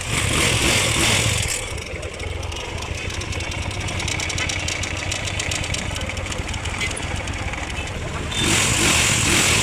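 Royal Enfield Bullet single-cylinder engine running steadily, blipped to higher revs and louder twice, during the first second and a half and again near the end.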